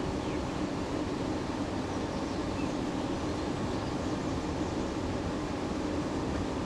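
Steady rushing of fast river water, an even noise that does not let up.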